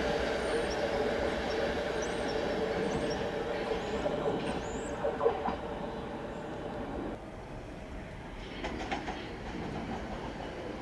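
London Underground S7 Stock train pulling away under automatic train operation, a steady whine over the rumble of its wheels. There are a few clicks about five seconds in as it runs over the pointwork, and the sound fades about seven seconds in as it draws away.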